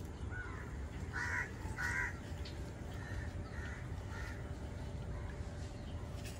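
A bird calling repeatedly in short calls, the two loudest a little after a second in and at about two seconds, fainter ones following, over a steady low background noise.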